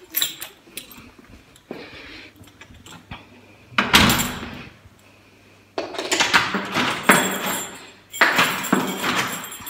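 Rustling and scraping of a fleece coat rubbing against the phone's microphone, with handling knocks and clicks. There is a sharp knock about four seconds in, and the rustling grows dense from about six seconds on.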